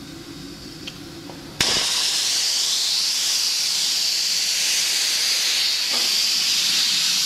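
Safety valve on a small vertical live-steam boiler popping open about a second and a half in: a sudden, loud steam hiss that then holds steady as the valve vents boiler pressure.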